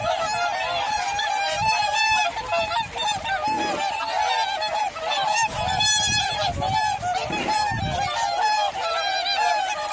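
A flock of swans honking, many short calls overlapping in a continuous chorus.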